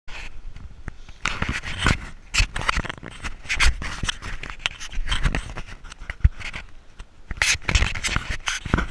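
Rustling and scraping handling noise from a camera carried while walking a dirt trail: irregular scuffs and knocks at uneven intervals, with no steady rhythm.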